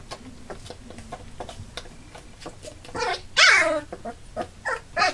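Labrador puppies nearly three weeks old whimpering: a short cry about three seconds in, then a loud, drawn-out whine falling in pitch, and a few short yelps near the end.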